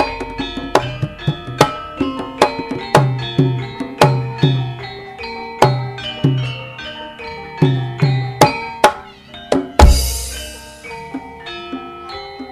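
Javanese gamelan (karawitan) music: bronze metallophones ringing out a melody over regular hand-drum (kendang) strokes, with one deep, heavy stroke, likely the large gong, about ten seconds in.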